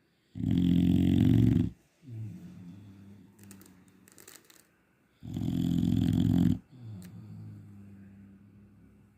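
A sleeping dog snoring. There are two loud, rasping snores about five seconds apart, each followed by a quieter, drawn-out breath.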